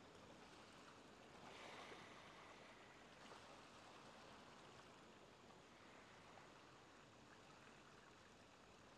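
Faint ocean waves washing, a steady soft wash that swells slightly about a second and a half in.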